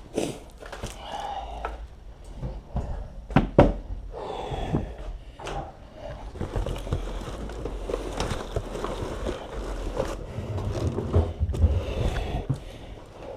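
Things being handled and packed into moving boxes: a run of irregular knocks, thumps and scrapes, the sharpest pair of knocks a little over three seconds in.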